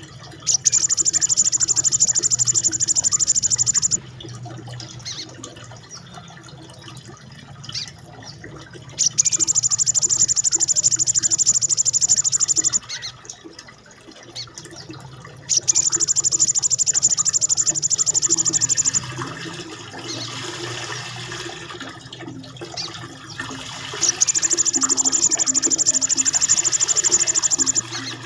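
A small songbird's rapid-fire rolling trill, a very fast, high, buzzy rattle delivered in four long bursts of about three to four seconds each, over a steady rushing, water-like background noise.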